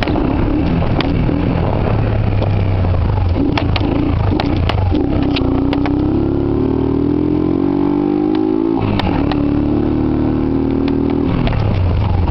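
Yamaha YBR 125's single-cylinder four-stroke engine running under way. Its pitch climbs steadily for about four seconds from the middle on, then drops abruptly about nine seconds in. Scattered sharp clicks sound throughout.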